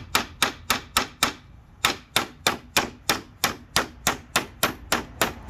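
Quick, light hammer blows, about four a second, from the steel piston head of a Tank Pang Combo multi-tool driving a nail into a wooden pallet, with a short pause a little over a second in.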